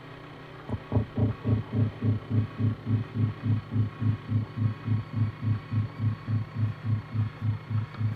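A low, even throbbing pulse, about three and a half beats a second, starting about a second in over a steady hum.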